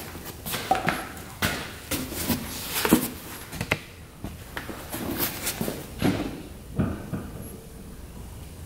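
Irregular knocks and clicks of a plastic funnel and coolant jug being handled while an ATV's coolant is topped up, dying down after about seven seconds.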